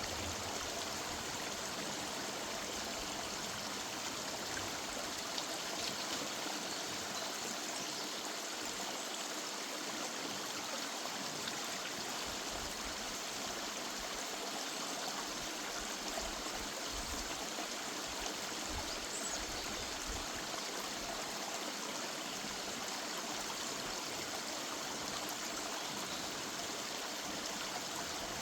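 River water running steadily, an even, unbroken rush of flowing water.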